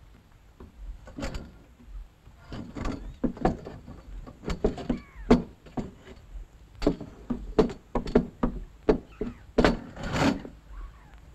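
A knife point stabbed again and again into a wooden boat deck, as in the game of jabbing between spread fingers. It makes an irregular run of sharp knocks, about two or three a second.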